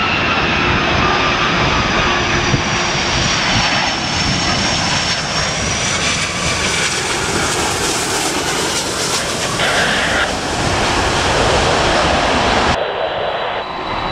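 Icelandair Boeing 757's Rolls-Royce RB211 jet engines running loud as it passes close on landing approach, with a high whine sliding slowly down in pitch, mixed with rain and wind hitting an umbrella. Near the end it cuts abruptly to a quieter, more distant airliner with a steady high whine.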